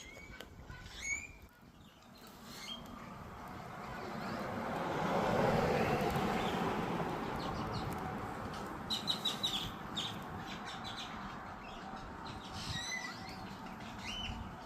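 Birds chirping now and then over a steady rushing background noise that swells to its loudest about five seconds in and then holds.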